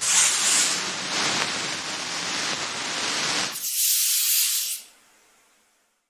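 Intro sound effect: a loud rushing hiss for about three and a half seconds, then a brighter, higher hiss that fades away about five seconds in.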